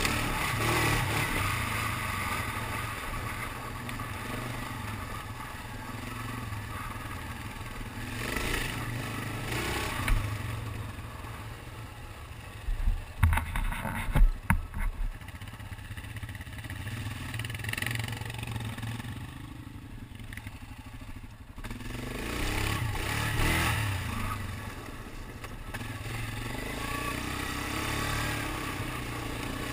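ATV engine running while the quad rides a rough dirt trail, its loudness swelling and dropping with the throttle. A cluster of sharp knocks comes about halfway through.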